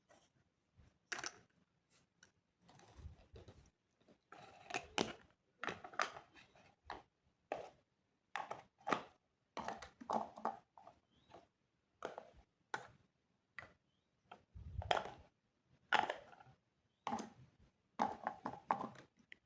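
Irregular small knocks, clicks and scrapes of miniature toy kitchen pieces being handled, with a few duller thumps.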